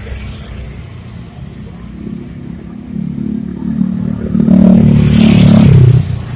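A motor vehicle's engine passing by: it grows louder from about three seconds in, is loudest with a rushing hiss around five to six seconds, then drops off sharply near the end.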